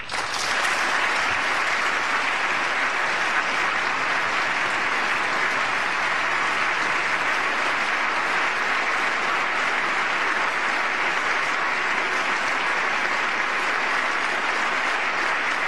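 Large audience applauding, a long, steady ovation that dies down near the end.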